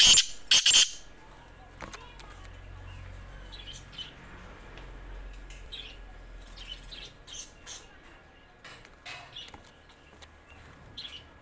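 Caged black francolin's harsh, loud call notes ending in the first second, followed by scattered short, faint high bird chirps.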